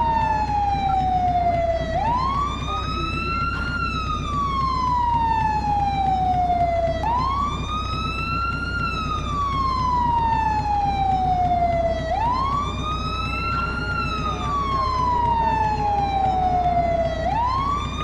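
Fire truck siren on wail: a tone sweeps up quickly, then slides slowly back down, repeating about every five seconds with four rises, over a low steady rumble.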